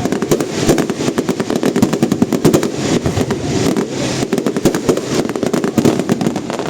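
Fireworks display crackling: a rapid, unbroken run of sharp cracks and pops, many a second, like a long string of firecrackers.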